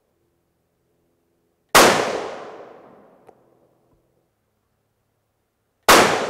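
Two shots from a .223 Remington 700 rifle, about four seconds apart, the second near the end; each rings off in a long fading echo, followed about a second and a half later by a faint sharp tick.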